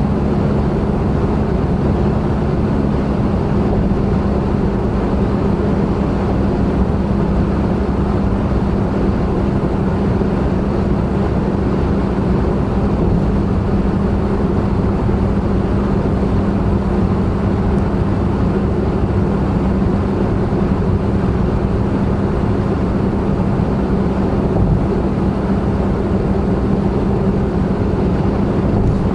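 Honda N-BOX Custom kei car's 660 cc turbocharged three-cylinder engine droning steadily with road and tyre noise, heard from inside the car while cruising at a constant speed on an expressway.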